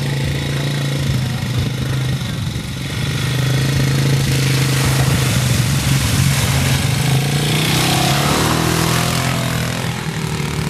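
A quad ATV's engine running as the ATV drives through a muddy pond, growing louder as it approaches, with the hiss and splash of water spray from the wheels from about four seconds in.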